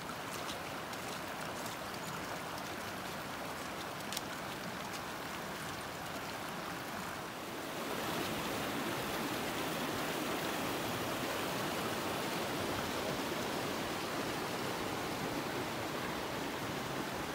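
Mountain stream flowing over rocks: a steady rushing of water that grows louder about halfway through.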